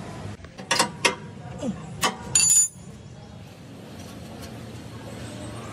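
Metal objects clinking: three sharp taps in quick succession, then a louder strike that rings briefly, over a steady low hum.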